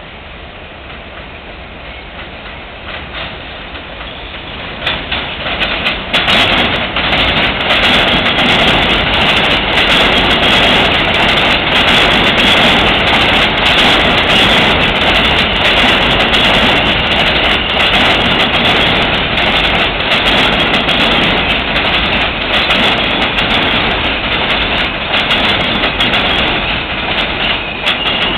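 R160B subway train running into an elevated station, building over the first few seconds to a loud, steady rumble with wheels clattering over the rail joints. A high, steady wheel squeal starts near the end.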